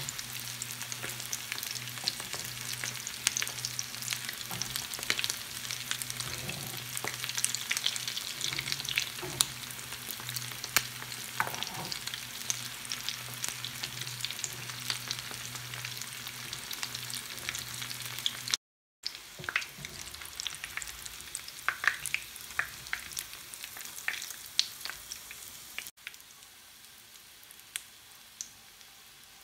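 Kola urundai (vegetable kofta balls) deep-frying in hot oil in a pan: a steady sizzle with many sharp crackles and pops, and a fork prodding and turning the balls. The sizzle gets quieter near the end.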